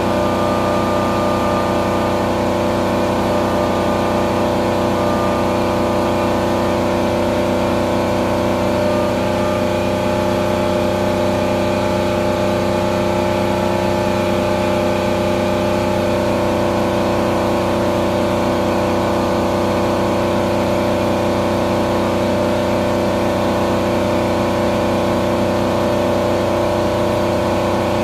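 Haas VF2 CNC vertical mill cutting metal under flood coolant: a steady machining whine of several held tones over the hiss of the coolant spray. A higher tone comes in about nine seconds in and drops out around sixteen seconds.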